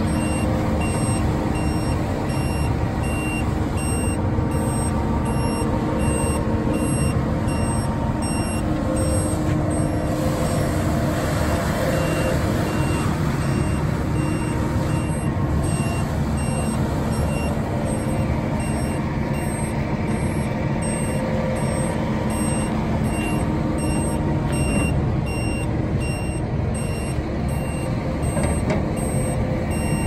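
Concrete mixer truck's diesel engine running steadily, with a reversing alarm beeping at an even pace over it.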